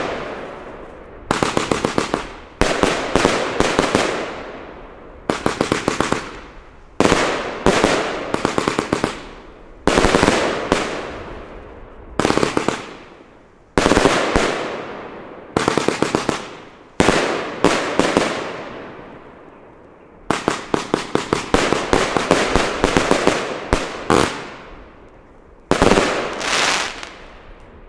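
Funke Swoboda compound firework cake firing in volleys: each volley is a quick run of sharp bangs that fades away, and they repeat every one to two seconds. From about 20 to 25 seconds in, the shots come faster and closer together.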